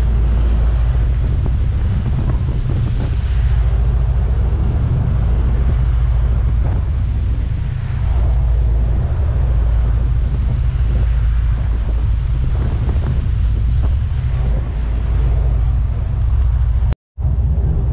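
Wind buffeting the microphone over the steady low drone of a 61-foot sportfishing boat's engines under way and the rush of its churning wake. The sound cuts out completely for a moment about a second before the end.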